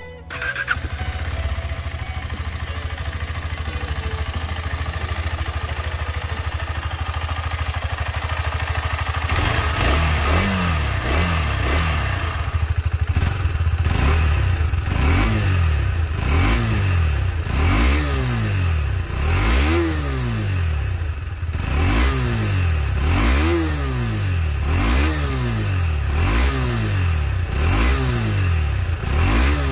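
KTM 250 Adventure's 249 cc single-cylinder DOHC engine idling steadily, then from about nine seconds in revved again and again in short throttle blips, roughly one every two seconds.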